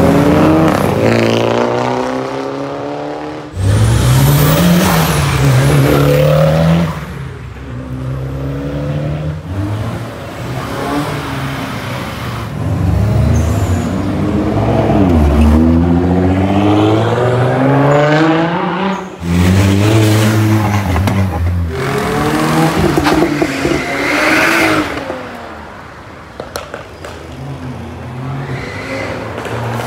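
Performance cars revving hard and accelerating away one after another, each engine's pitch climbing and then dropping. The loudest bursts start suddenly about three and a half seconds in and again around nineteen seconds, and it grows quieter near the end.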